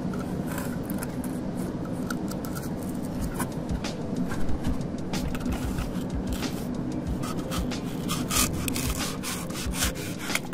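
Sanding of an OSB roof deck to smooth out its bumps: a run of irregular, scratchy abrasive strokes over a steady low hum.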